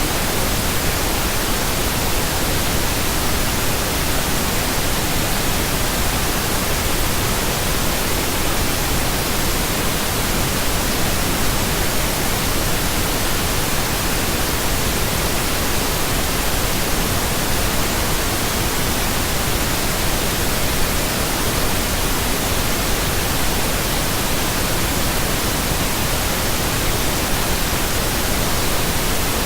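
Steady synthetic pink noise: an even, unchanging hiss spread across the whole range of pitch.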